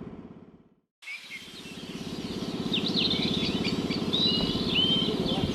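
Small birds chirping in short, quick sweeping calls over a steady, low, rapidly pulsing engine hum. The sound fades out, there is a second of silence, and then it comes back in.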